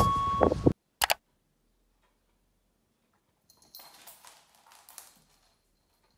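Background music that cuts off under a second in, then a brief blip. Near silence follows, with faint scattered clicks and soft rustling for a couple of seconds past the middle.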